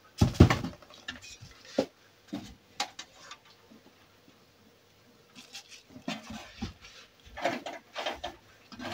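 Hands working on a desktop PC case and its parts: a sharp knock just after the start, then scattered clicks and taps, and bursts of rustling and clattering handling noise in the second half.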